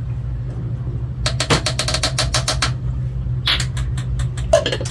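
A spoon clicking rapidly against a container while minced garlic is scooped out: a quick even run of taps about a second in and a looser scatter of clicks near the end, over a steady low hum.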